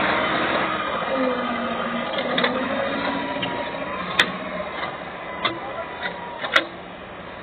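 Caterpillar 916E wheel loader's diesel engine running as the bucket works a dirt pile. Sharp metallic knocks sound about four seconds in and again about six and a half seconds in, and the engine fades slowly.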